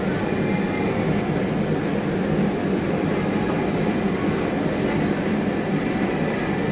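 Steady hum and rush of indoor air conditioning or ventilation, unchanging throughout.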